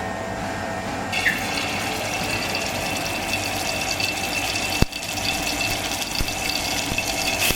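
Water running steadily, as from a kitchen tap, growing fuller about a second in. There is a single sharp click about five seconds in.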